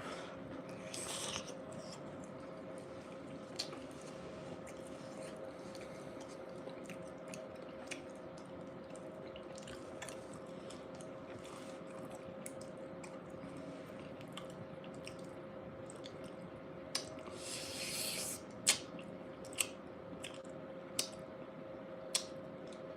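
A person chewing a bean burrito close to the microphone: soft, wet mouth sounds with scattered sharp clicks, and a short louder noisy burst about three-quarters of the way through. A faint steady hum runs underneath.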